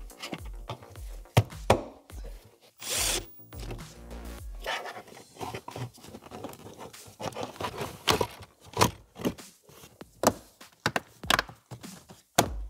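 Hard plastic dashboard trim panels being handled and pressed back into place, giving a string of sharp clicks and knocks, the loudest near the start, in the middle and just before the end. Background music with a steady beat plays underneath.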